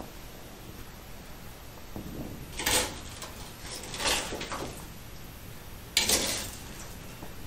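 Gas torch heating a lead-filled roof seam to melt the lead out: a steady hiss with three louder rushing bursts of about half a second each, the last starting suddenly.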